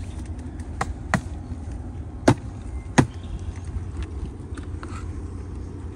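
An emptied honeybee nuc box being knocked, upside down over the open hive, to tap the last bees out. There are two lighter knocks about a second in, then two louder ones over the next two seconds.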